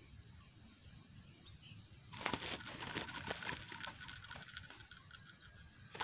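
A greater coucal flapping and scrabbling against a wire-mesh bird trap: a burst of rustling and sharp clicks starting about two seconds in and thinning out over about three seconds.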